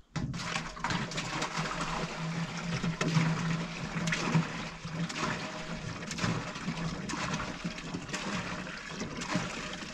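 Water running and splashing, with many small clicks through it and a low steady hum underneath.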